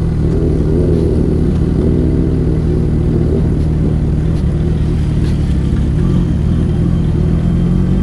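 Motorcycle engine running steadily while riding, with a low rumble underneath.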